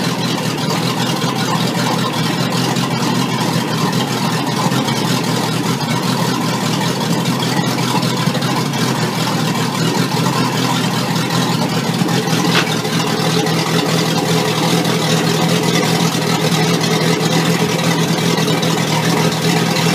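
Sterndrive engine of a 2002 Four Winns 248 Vista cruiser running steadily on a garden hose with the drive in gear on the trailer. The stainless propeller spins in the air and throws off water.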